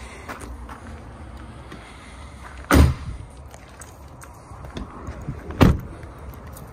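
Two heavy slams about three seconds apart: the rear doors of a Volkswagen Transporter van being shut.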